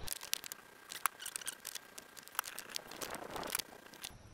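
A hand rubbing boiled linseed oil into charred shou sugi ban timber, giving a run of light scratchy crackles and clicks that stops about four seconds in.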